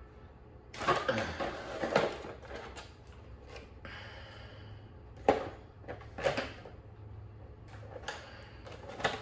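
Hands connecting a battery for an RC truck's light kit: a series of separate plastic clicks and knocks, the sharpest about five seconds in.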